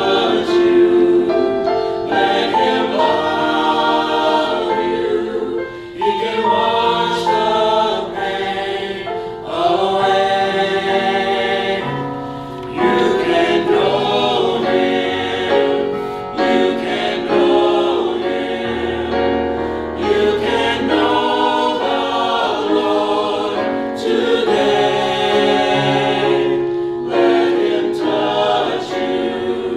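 Mixed choir of adult and youth voices singing an anthem in harmony, with low sustained notes held beneath the voices.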